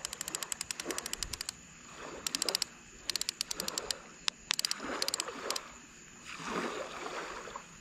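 Spinning reel's drag clicking rapidly in several stop-start bursts as a fish pulls line off: an alligator gar making a run on the bait.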